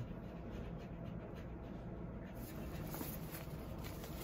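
Quiet rubbing and rustling of hands working over a shaggy dog's coat, with the dog panting softly. About two seconds in it changes to the crinkle of a thin exam glove being pulled onto a hand.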